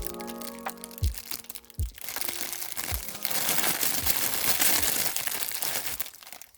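Plastic packaging crinkling as it is handled, growing dense from about two seconds in and stopping near the end. Background music with a steady beat plays underneath.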